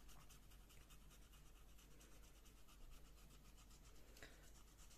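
Faint scraping of a knife blade along an apple's skin, scraping off its wax coating.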